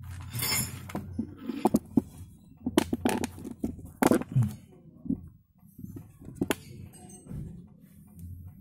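Scattered metallic clinks and knocks with a brief scrape near the start, from hands working at the underside of a motorcycle engine. The clinks come in small clusters about three and four seconds in, with a single knock later.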